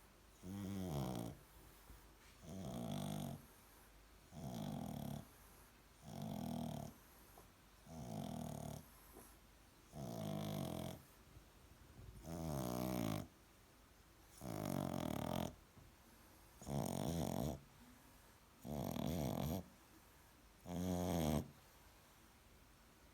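French bulldog snoring in its sleep: eleven rasping snores of about a second each, one every two seconds or so, the last few a little louder.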